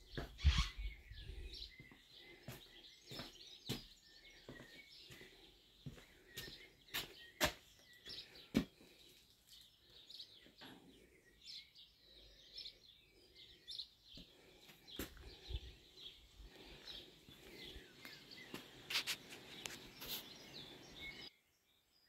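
Small birds chirping and singing in a garden, many short calls overlapping, with scattered sharp clicks and a couple of low rumbles. The sound cuts off abruptly near the end.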